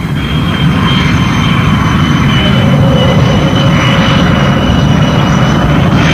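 Small jet aircraft's engines running as the plane rolls along the runway for takeoff: a steady high whine over a deep rumble, getting a little louder about half a second in.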